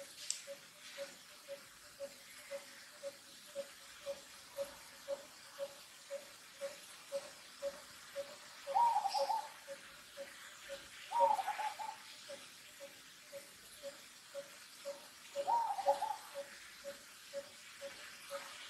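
Birds calling: one repeats a short, low note about twice a second without a break, while louder, longer calls come four times.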